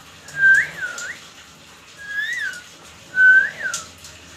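Pet parrot whistling: three short whistled phrases, each a held note that swoops up and back down.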